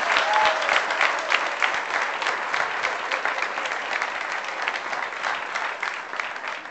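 A small outdoor crowd applauding, the clapping gradually dying down.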